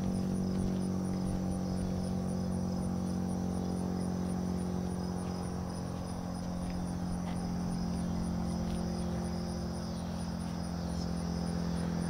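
Federal Sign & Signal STH-10 rotating siren with a Valley motor coasting down after its two-minute alert. It gives a low, steady droning tone with faint overtones.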